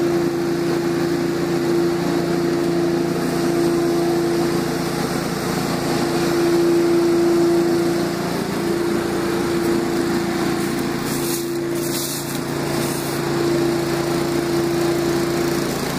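Small gas engine running steadily at high speed with an even drone, dipping briefly about halfway through and again near the end. A couple of short scratchy crackles about two-thirds of the way in.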